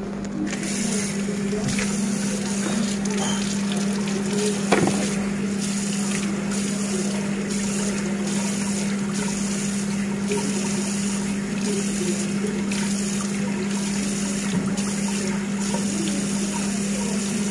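Water running steadily over hair during a hair wash, starting just after the beginning, with a steady low hum beneath.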